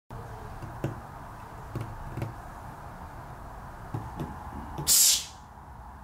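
Several light knocks and taps in a small room, then a short, loud burst of hiss about five seconds in.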